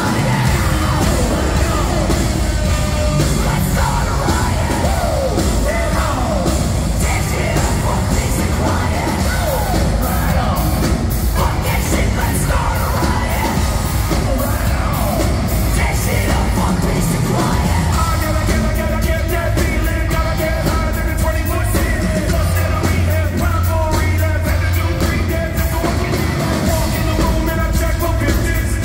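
Rap-rock band playing live and loud through the PA: vocals over drums, bass and guitar, heard from among the audience.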